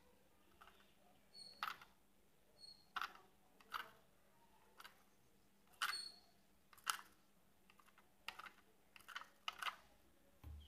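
Faint, irregular light taps and clicks, about a dozen spread unevenly, a few of them with a brief high chirp.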